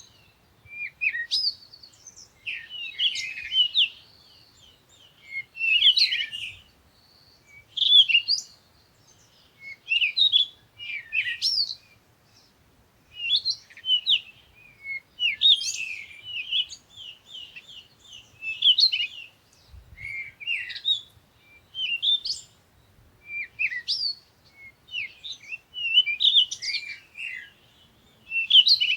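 Songbirds chirping in short bursts of quick, high notes, a burst every second or two with brief pauses between.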